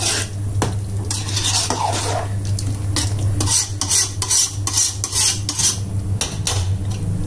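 Metal ladle scraping and clinking against a metal pot as a thick curd-and-masala chicken curry is stirred fast, mixed quickly so the curd doesn't split. A steady low hum runs underneath.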